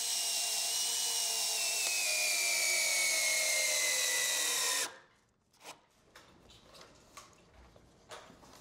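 Cordless drill-driver screwing a threaded steel cable-railing fitting into a wooden newel post, its motor whine slowly sinking in pitch, then stopping abruptly about five seconds in. A few faint small clicks of the metal fittings being handled follow.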